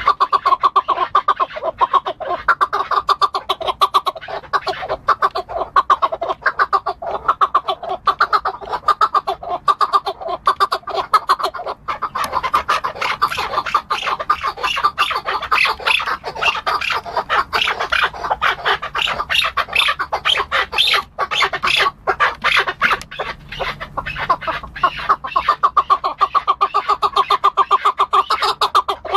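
Chukar partridge calling: a fast, unbroken run of short repeated chuk notes, louder and sharper through the middle stretch.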